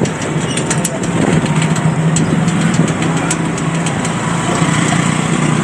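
Auto-rickshaw engine running steadily with a low hum during a ride in traffic, with scattered small clicks.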